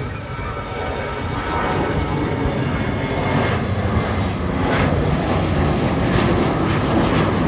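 Airliner taking off, its engine roar growing steadily louder as it climbs toward and past the listener.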